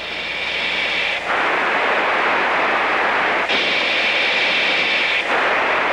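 Steady rushing hiss of an F-15 cockpit audio recording, open radio or intercom noise, with a high steady tone sounding twice: at the start for about a second and again in the middle for nearly two seconds.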